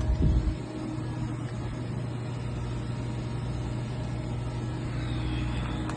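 An engine running steadily at constant speed, a low even hum, with some low rumbling in the first half second.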